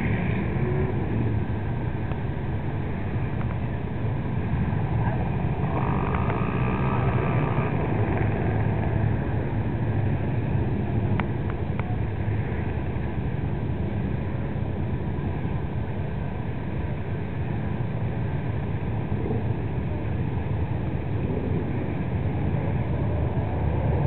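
Off-road mud-bogging rig's engine running with a low, steady rumble as it drives into and through a water-filled mud pit.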